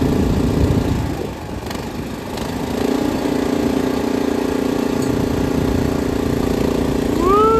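Small single-cylinder gas engine on an irrigation wheel line mover running steadily; it drives the hydraulic pump that powers the wheel line's hydraulic drive motors. Its sound drops about a second in and comes back up about three seconds in. Near the end a short tone rises and falls over it.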